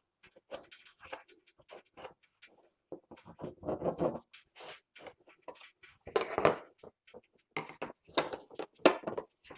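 Hand work on a plastic car bumper part: irregular small clicks and knocks, with a few short scraping strokes, the loudest about four seconds in and again about six and nine seconds in.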